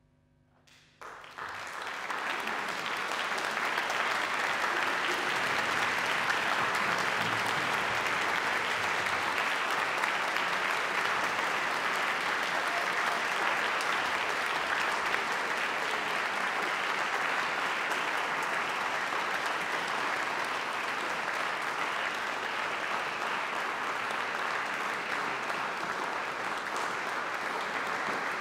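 A concert-hall audience applauding: near silence, then clapping breaks out about a second in and quickly builds to a steady, dense applause.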